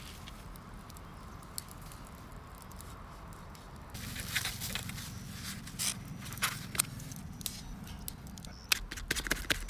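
Wood fire burning in a campfire pit, crackling and popping irregularly. The first few seconds are faint; the pops become frequent and sharp near the end.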